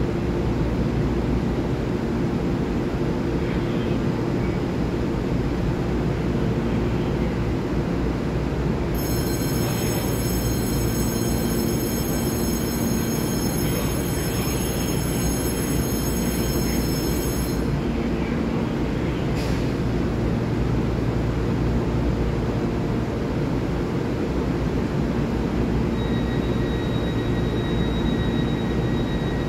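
Taiwan Railway EMU3000 electric multiple unit standing at the platform, its onboard equipment humming steadily. A high-pitched electronic whine joins for about eight seconds in the middle, followed by a single click, and a faint high tone starts near the end.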